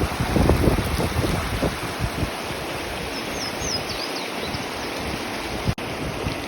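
River rapids rushing steadily, with wind buffeting the microphone in the first couple of seconds. A few faint high chirps come through a little past halfway.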